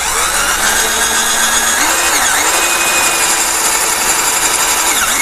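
12-volt cordless drill running with a metal-cutting twist bit boring into thin steel tube: a steady motor whine under the grinding of the bit in the metal. The motor pitch shifts briefly about two seconds in and again near the end as the load changes, and the drill cuts the 2–3 mm steel easily.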